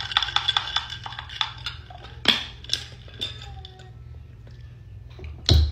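Glass cup of ice water being handled, with its bamboo lid fitted: clicks and clinks of glass, ice and lid, and a sharp knock near the end.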